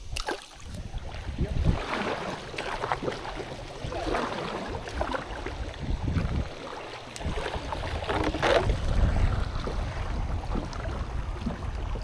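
Water sloshing around a kayak on a river, with uneven gusts of wind on the microphone.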